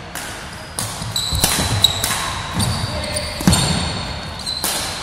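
Badminton play on a wooden sports-hall floor: several sharp racket-on-shuttlecock hits that echo around the hall, with shoe squeaks on the court between them.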